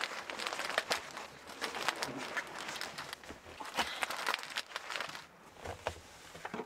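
Rustling of a quilted comforter being folded and handled, with irregular soft knocks and clicks from moving about a small camper interior.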